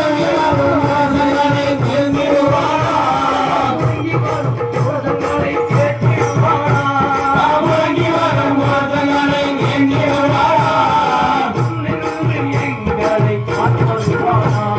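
Devotional bhajan: voices singing a drawn-out, gliding melody over a steady rhythmic percussion beat.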